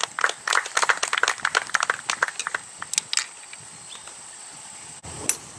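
Golf clubs clinking and rattling against each other in a golf bag: a quick run of irregular metallic clicks over about three seconds, then a single click near the end.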